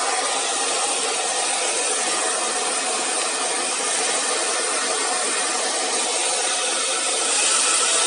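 PowerTec TR-901 hair dryer running steadily on test after its damaged power cord was repaired: an even rush of fan and blown air with a faint steady whine, a little louder near the end.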